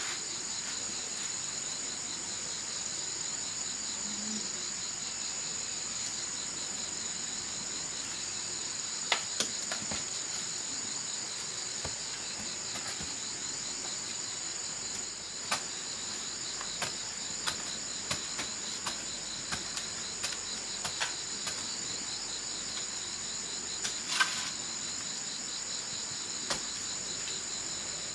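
Steady chorus of insects, a continuous high shrill with a fast, even pulse. From about nine seconds in, scattered sharp clicks and knocks sound over it.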